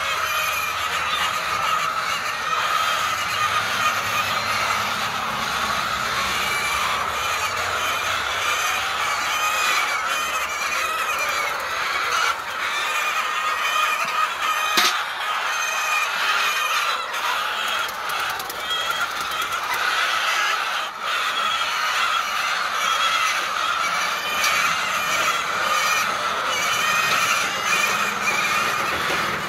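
A large flock of birds calling continuously, a dense chorus of many short calls overlapping.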